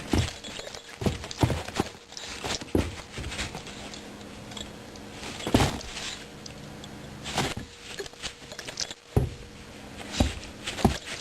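Irregular knocks and taps, about ten of them a second or so apart, over a faint steady hum.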